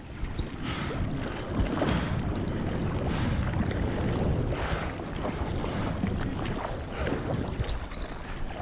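Choppy sea water sloshing and splashing around a bodyboard, heard from right at the water surface, with several surges of splashing and a rumble of wind on the microphone.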